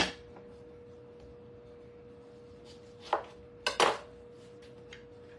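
Kitchen handling noises: a short clatter about three seconds in and a double clatter just under four seconds in, with a few faint ticks, over a steady faint hum.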